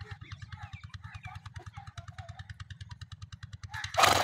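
A small engine running steadily, a fast low throb of about a dozen beats a second. Near the end comes one short, loud blast of noise.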